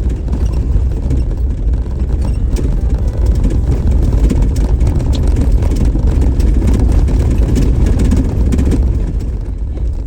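Off-road vehicle driving on a graded dirt road at about 30 mph: steady engine and tyre rumble, with scattered clicks and rattles through the middle.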